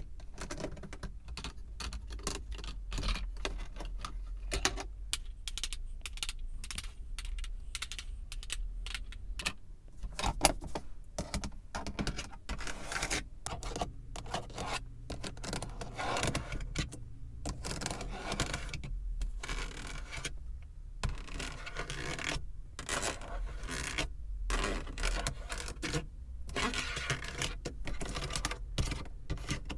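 Fingers and fingernails tapping on the surfaces of a car, a quick, irregular run of small clicks with a few louder knocks.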